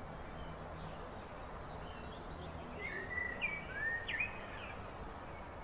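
Outdoor background noise with a faint steady low hum. Birds chirp several times, short sliding calls, from about two and a half seconds in, and a brief high trill sounds near the end.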